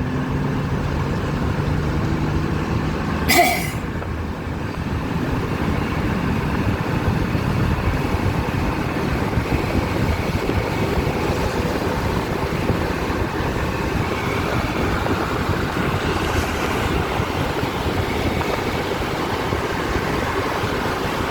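Steady road and engine noise of a car driving, heard from inside the cabin. There is a low engine drone in the first few seconds and one sharp knock about three and a half seconds in.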